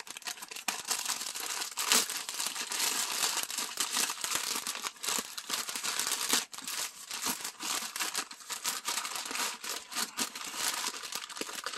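Brown kraft-paper mailer bag being crumpled and torn open by hand: a dense crackling paper rustle with many sharp crinkles.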